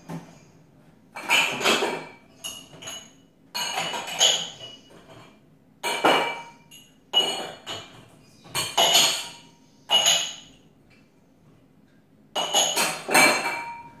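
Drinking glasses clinking against each other and the dishwasher's wire top rack as they are lifted out, in short bursts of ringing clinks every second or two.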